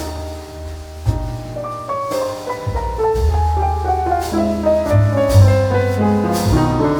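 Background music: a piano-led instrumental with a melody stepping downward over steady bass notes and light percussion.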